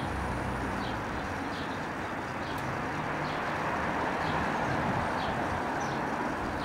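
Steady outdoor background noise with a small bird chirping again and again, a short high chirp roughly once a second.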